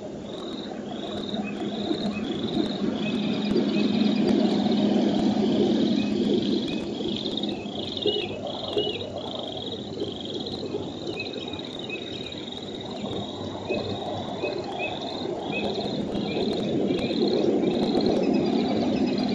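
A chorus of frogs calling, short high calls repeating about twice a second, over a steady low rushing noise.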